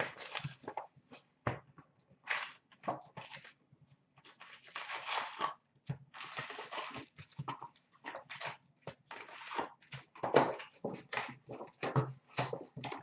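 A cardboard 18-19 Upper Deck Series 2 hockey card box being torn open by hand along its flap, then its wrapped packs rustling and sliding as they are tipped out and stacked. The sounds come in short, irregular bursts of tearing, crinkling and scraping.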